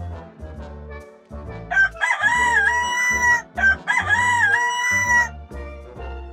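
Rooster crowing twice in a row, each crow a short rising start followed by a long held note, over light swing-style background music.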